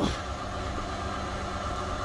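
Steady low rumble of an idling engine, unchanging throughout.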